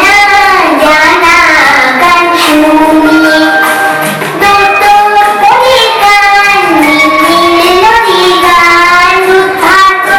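Song playing for a dance: a high voice sings long, wavering melodic lines over instrumental backing.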